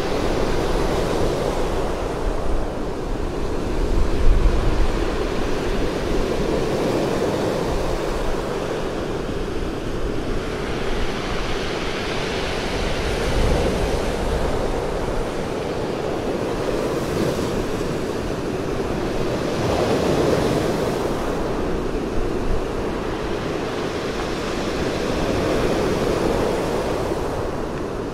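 Black Sea surf breaking and washing up a pebble beach, a continuous rush that swells with each wave every several seconds.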